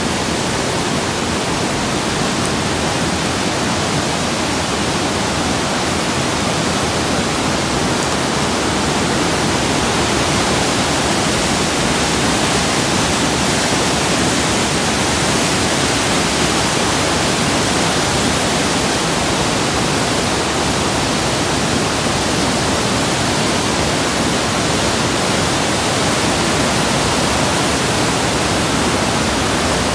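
Waterfall: a whitewater cascade of a mountain creek pouring over boulders, a loud steady rush of water.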